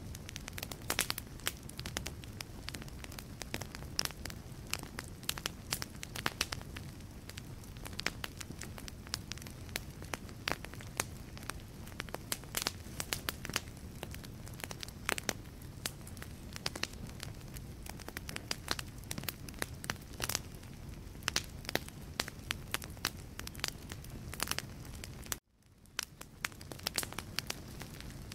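Wood logs burning in a fireplace, crackling and popping with many sharp snaps over a steady low rumble of flame. About 25 seconds in, the sound cuts out abruptly and fades back in.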